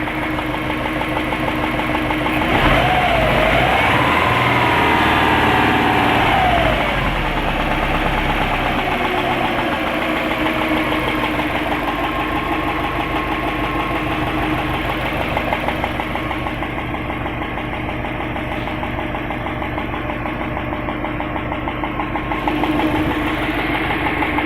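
Subaru Impreza WRX's EJ205 turbocharged flat-four engine running, with a fast, constant clicking from the engine. It is revved once about three seconds in, then settles back to idle.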